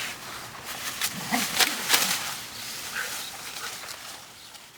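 A dog tearing at tree branches: leaves rustle and twigs crack in a few sharp strokes, the loudest about two seconds in, then it fades away.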